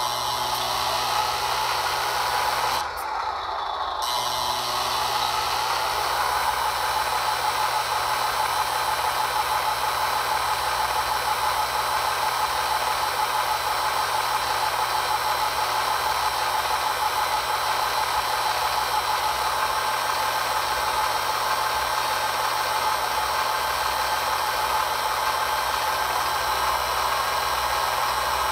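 The electric hydraulic pump of an RC model truck's Palfinger loading crane runs steadily as the crane boom folds in. It makes a constant hum and whine that bends in pitch and briefly dips about three seconds in, then holds even.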